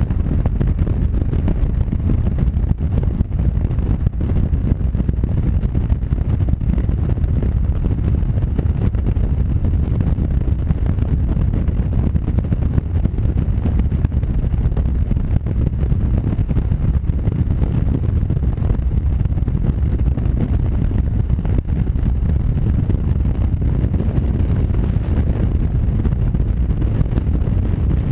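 Honda Varadero motorcycle riding at steady cruising speed: wind buffeting the mounted camera's microphone in a steady low rumble, with the V-twin engine and tyre noise underneath.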